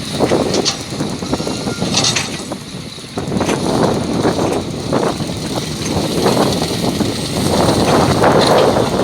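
Heavy diesel machinery at work as an excavator loads a dump truck: a loud, uneven engine rumble with a few short high hisses.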